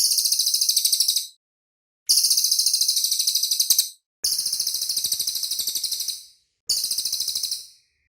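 Cililin songbird singing high, rapid, tightly packed trills in four separate phrases of one to two seconds each, with short silent gaps between them.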